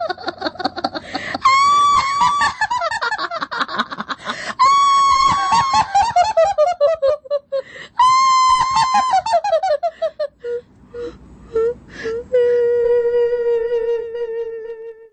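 A high-pitched ghostly cackle, three times: each starts with a held shriek and falls away in quick laughing pulses. It is followed by a long, steady wailing note near the end.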